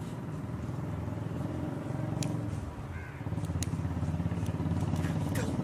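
Steady low hum of a motor vehicle engine running, with a few sharp clicks.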